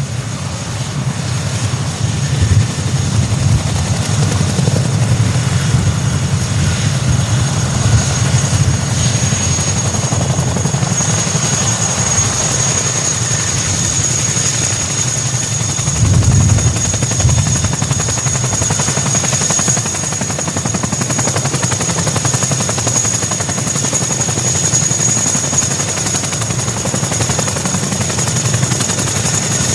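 Chinook tandem-rotor helicopter running, its rotors and turbine engines making a loud, steady, deep rumble with a hiss. A high steady whine comes in about ten seconds in.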